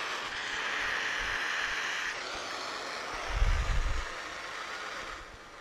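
MAP gas hand torch burning with a steady hiss, which dies away near the end. A short low bump about three and a half seconds in.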